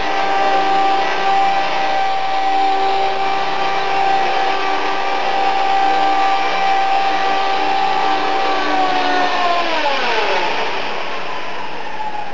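Electric RC collective-pitch helicopter (Esky 005 CP2 with King shaft-driven tail, 3100kv brushless motor) hovering, its motor and rotors giving a steady high whine. About nine seconds in the whine falls steadily in pitch as the helicopter lands and the rotors spool down.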